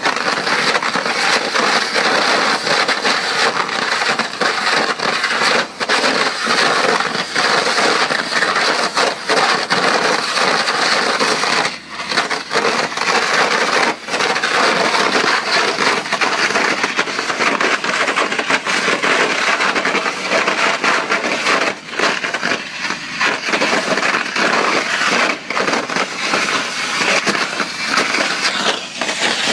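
Ultra-high-pressure hydrodemolition water jet at 2500 bar and 20 l/min blasting into concrete: a loud, continuous hiss thick with crackling as the concrete breaks up, with a few brief dips in level.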